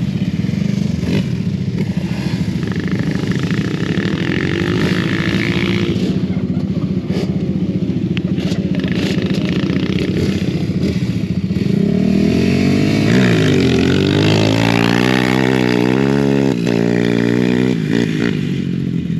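Off-road vehicle engines running. From about twelve seconds in, one engine is revved hard, its pitch rising and falling again and again as it is worked on the course.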